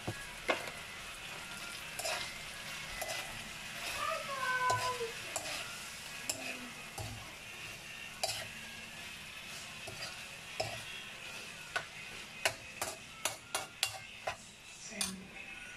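Beef strips and onions sizzling in a steel wok while a metal spoon stirs them, clinking and scraping against the wok. The clinks come faster in the last few seconds.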